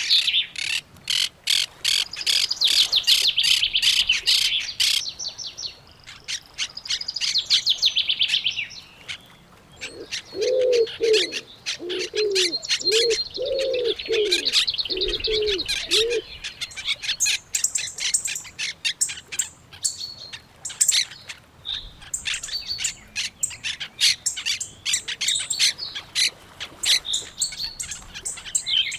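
Several birds singing together, with rapid chirps and trills throughout and, near the middle, a run of about eight low notes from another bird.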